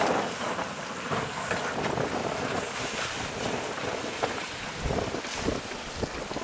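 Wind buffeting the microphone over choppy open water, with waves washing. A few heavier gusts thump about five seconds in.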